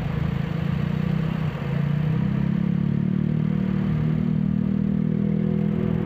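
Daihatsu Rocky's 1.0-litre turbocharged three-cylinder engine running while driving, picked up by a microphone inside the engine bay. The engine sound grows louder and a little higher in pitch about two seconds in, then holds steady.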